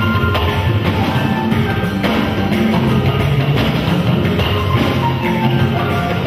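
Instrumental music with drums keeping a steady beat under held melody and bass notes.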